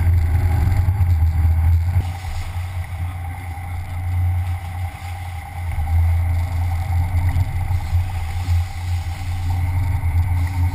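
Sportfishing boat's engines running steadily, a low drone heard from on board, with a hiss of wind and water over it.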